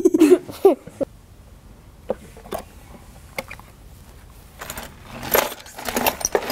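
Metal links of a mayor's chain of office clinking as it is handled in its box: a few scattered clicks at first, then a dense jangling run in the last couple of seconds as the chain is lifted out.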